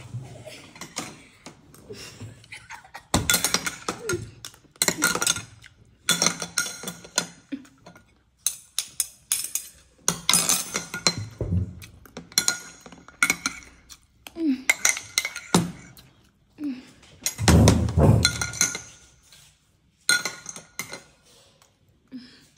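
Metal spoon clinking and scraping against a ceramic bowl again and again as someone eats from it.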